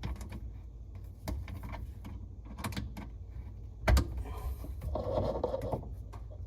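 Clicks and scrapes of tightening the dishwasher hose connector on a garbage disposal's inlet, with one louder knock about four seconds in and a rougher scraping stretch after it.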